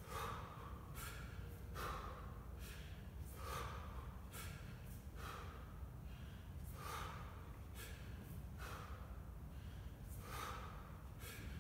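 A man's sharp, forceful breaths, one about every second and a half to two seconds, timed to the reps of one-arm kettlebell snatches. A steady low hum runs underneath.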